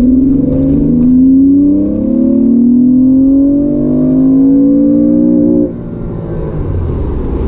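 Porsche 911's air-cooled flat-six, on its old exhaust headers, accelerating hard at full throttle, heard from inside the cabin. The engine note climbs, drops once about two seconds in as the car shifts up, climbs again, and then falls away suddenly near the end as the throttle is lifted.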